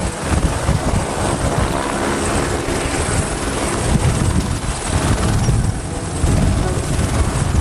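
Helicopter rotor and engine running steadily, with a faint high whine over the low rotor noise.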